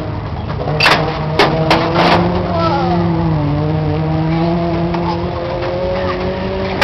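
Modified race car engines running on the track, a steady drone whose pitch dips slightly and rises again. Several sharp clicks come in the first two seconds.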